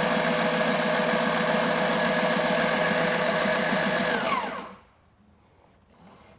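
Sailrite LSZ-1 Plus sewing machine running at steady speed, stitching a straight seam through scrap canvas with a fast, even stitch rhythm. Its motor winds down, falling in pitch, and stops about four and a half seconds in.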